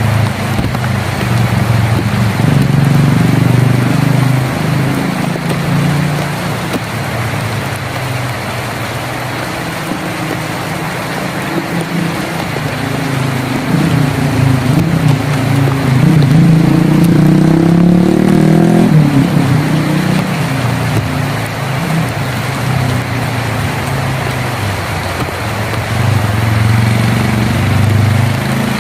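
Heavy rain drumming on a tin roof as a steady hiss. Beneath it runs a low engine rumble of a motor vehicle, which rises in pitch and breaks off suddenly a little past the middle.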